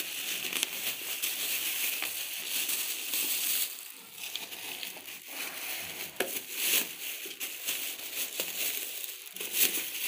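Clear plastic wrapping crinkling and rustling as it is handled and pulled off a fan heater, with uneven crackles and small sharp snaps that ease off for a moment about halfway through.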